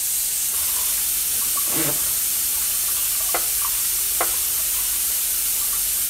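Air-operated vacuum oil extractor pulling the last of the engine oil up the dipstick tube into its tank, making a steady hissing, sputtering noise. This is air being drawn in with the oil as the vacuum drops: the sign that the oil pan is just about empty.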